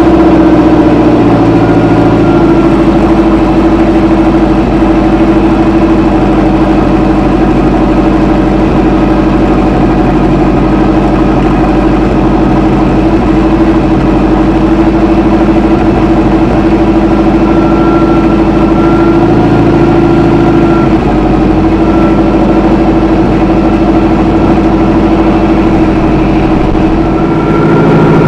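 Inboard-outboard boat engine running at a steady idle while fogging oil is dribbled into its carburetor for winter storage. The engine speed rises near the end.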